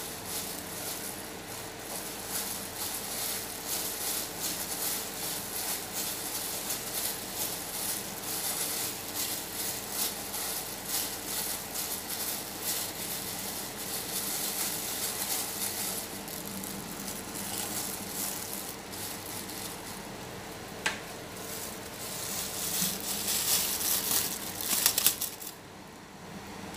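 Plastic bags worn as gloves crinkling and rustling as hands scoop and shape mashed potato mixture in a glass bowl. There is a single sharp click late on, and busier rustling just before the sound drops away near the end.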